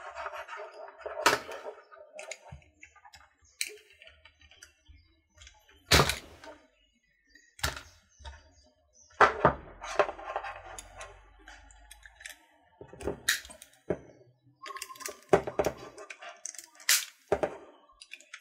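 Hard plastic kit parts being cut free of their sprue with a utility knife: a series of sharp, irregular cracks and snaps as the blade parts the plastic gates, with rustling and clatter of the plastic parts tree between them.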